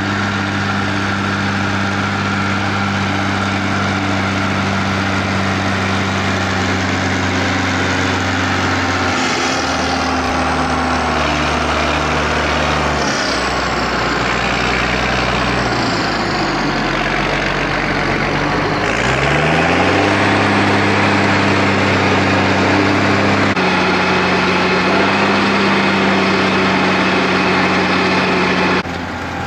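Schlüter tractor's diesel engine running steadily. Its speed dips about halfway through, then climbs back up a few seconds later and holds. The sound cuts off abruptly near the end.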